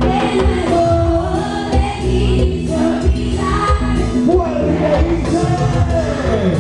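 Loud live band music with a singer, a steady beat and sustained instrument notes, sung lines gliding up and down over them.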